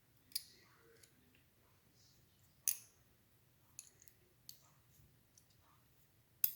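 Small metal clicks and taps of an Allen wrench tipped with a neodymium magnet probing inside a padlock body to fish out a stuck pin. The clicks are sparse and irregular, with two sharper ones about two and a half seconds in and near the end.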